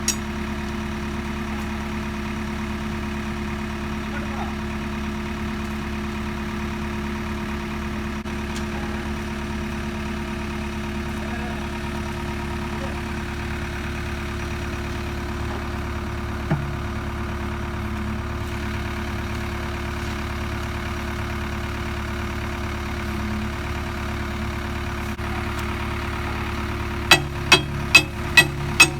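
JCB 3DX backhoe loader's diesel engine idling steadily. There is a single sharp knock just past halfway, and near the end a quick run of sharp knocks, about two or three a second.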